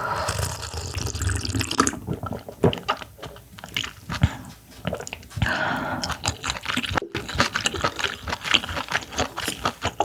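Close-miked wet chewing of raw clam meat: squelchy mouth sounds with many small irregular clicks, and longer wet stretches near the start and around five seconds in.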